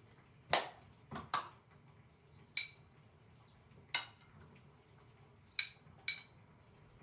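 Dishes and cutlery being handled: about seven short knocks and clinks at uneven intervals, a few with a bright ring like china or glass.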